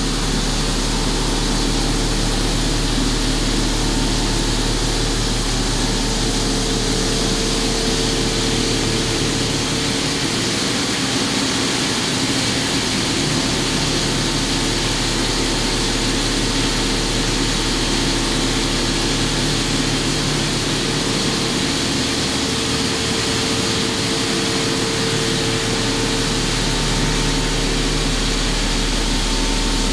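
CNC mill's profile end mill cutting the outside shape of a 416 stainless steel recoil lug in a single pass, under high-pressure flood coolant. The sound is a steady mix of held tones and hissing spray.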